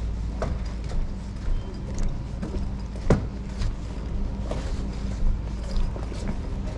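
Footsteps on a railway station platform, with short knocks every half second or so and a louder one about three seconds in, over a steady low rumble.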